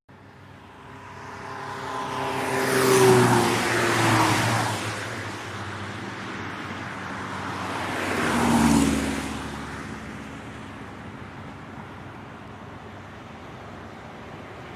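Two road vehicles drive past one after the other, each growing louder to a peak with its engine pitch dropping as it goes by, the first about three seconds in and the second near nine seconds. Steady road noise carries on after them.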